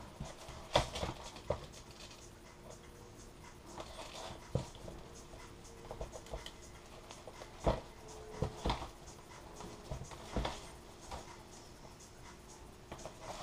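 Covering iron rubbing and scraping as it is slid over laminating film on a foam wing, the film crinkling under it, with a handful of sharper knocks and clicks as it is handled.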